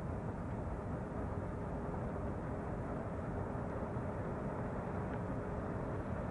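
Steady low rushing roar of steam and volcanic gas jetting from a crater vent, with a faint steady hum running through most of it.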